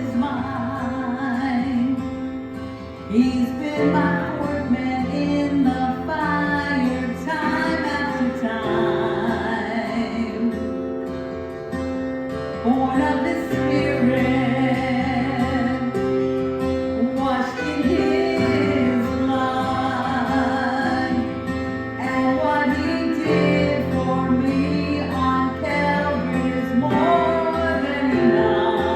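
A woman singing a gospel song solo over a recorded backing track, her voice rising and falling in sung phrases above steady accompaniment.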